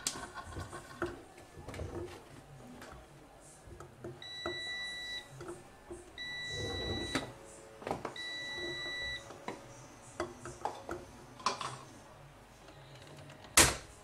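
Washing machine's electronic signal beeping three times, each a steady high beep about a second long, spaced about two seconds apart, over light clicks and rattles. A single sharp knock near the end.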